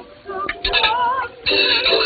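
Music with a high voice, most likely a woman, singing in an operatic style with a wide vibrato. The music dips briefly and comes back in loudly about a second and a half in.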